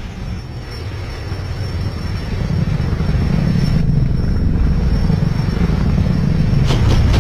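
Rotor noise from a large multirotor aircraft: a low rumble that grows louder as it lifts off, with a fast regular chopping of about four beats a second starting near the end.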